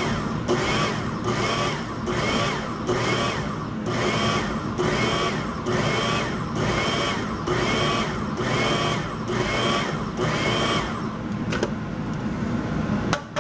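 Countertop food processor mincing peeled crawfish tails in quick repeated pulses, roughly one every three-quarters of a second, each a short whir that winds up and down. The pulsing stops about eleven seconds in, followed by two sharp plastic clicks as the lid comes off.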